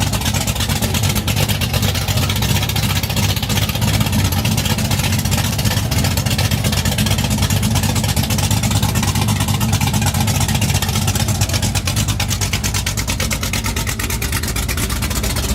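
1968 Chevrolet Camaro's big-block V8 running loud and steady, with a deep, evenly pulsing exhaust note.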